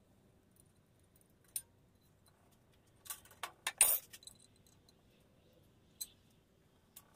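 Small steel parts clinking and tapping against each other and the bench as they are handled and fitted together. There are a few isolated taps, and a quick run of clinks about three to four seconds in, the loudest a sharp metal clank.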